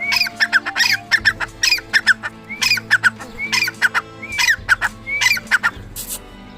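A partridge calling: a repeated phrase, each one a short rising note followed by several quick falling notes, about once a second, then stopping shortly before the end. Steady background music runs underneath.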